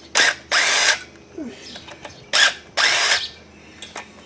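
A power driver run in four short bursts, two pairs of quick trigger pulls, undoing the cylinder head nuts on a Yamaha G1 golf cart's two-stroke engine.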